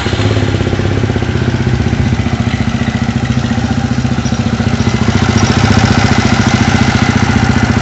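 Horizon 250 motorcycle engine idling steadily just after starting, with an even pulsing beat. It runs quietly on a newly fitted cam chain tensioner: the loose old tensioner had let the timing chain slap, a loud noise that two mechanics had taken for a connecting-rod fault.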